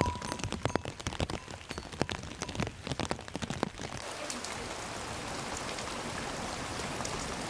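Irregular clicks and knocks of a herd of sheep and goats walking over a wet, stony trail. About four seconds in they give way to a steady hiss of rain.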